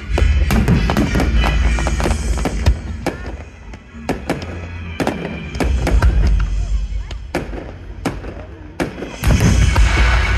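Fireworks bursting in rapid succession, many sharp bangs and crackles over a low rumble, with music playing alongside.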